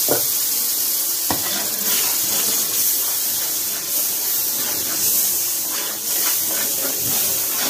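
Onion-tomato masala with chilli powder and curry masala sizzling in a large cooking pot with a little water just added, stirred with a steel ladle that clacks against the pot twice near the start.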